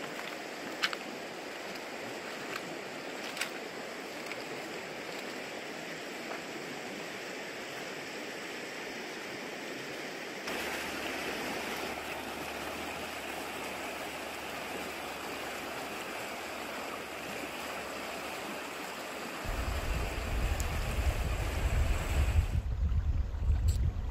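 River water flowing in a steady rush, a little louder from about ten seconds in. Near the end a low rumble joins it.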